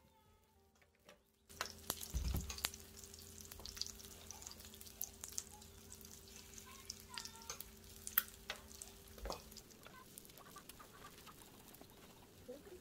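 Egg-battered jeon sizzling in oil on a griddle, starting about a second and a half in. Scattered sharp clicks come from the chopsticks and spoon touching the griddle. A faint low hum runs under it and stops about three seconds before the end.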